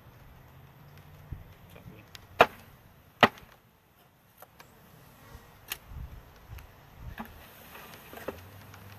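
Two sharp wooden knocks about a second apart as a wooden bee package box is bumped against the hive, followed by lighter knocks and taps as the box is handled and tipped.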